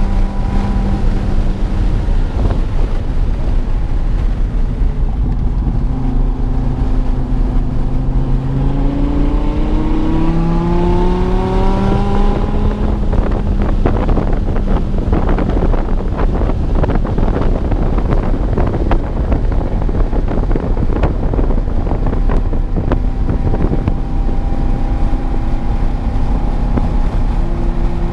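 Dodge Viper TA 2.0's 8.4-litre V10 with aftermarket headers, driven hard on track. The engine note drops, then climbs steadily as it accelerates. It runs loud and rough at high revs for about ten seconds, then settles to a lower steady pitch and begins rising again near the end.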